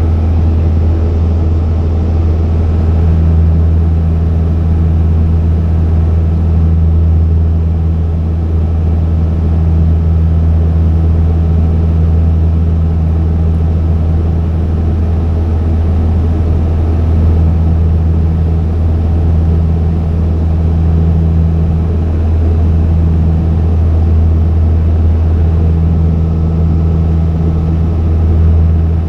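Small propeller plane's engines running steadily in flight: a loud, even low drone with a steady higher hum that comes and goes.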